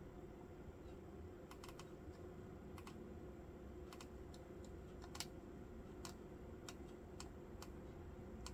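A dozen or so faint, sharp clicks at uneven spacing, some in quick pairs, from a laptop's keys or touchpad buttons being worked through a settings dialog, over a steady low hum.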